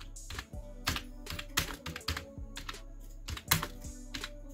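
Typing on a full-size wired computer keyboard: irregular keystroke clicks, about two or three a second, over a steady low hum.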